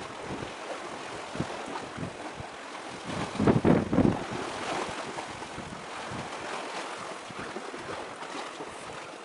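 Wind buffeting the microphone outdoors, an uneven rushing noise with low rumbling gusts, the strongest about three and a half to four seconds in.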